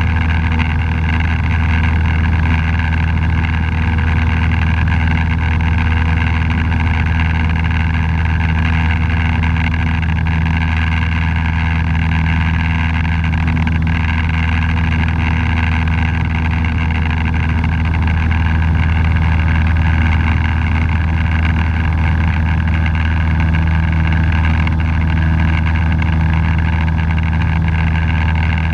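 Cessna 172's piston engine and propeller droning steadily in the climb after take-off, heard inside the cabin. There is a strong, even low hum with no change in pitch.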